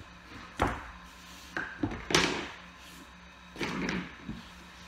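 Vinyl plank flooring and tools being handled and set down on a plywood subfloor: a string of sharp knocks and thuds, the loudest about two seconds in, and a longer scuff near the end.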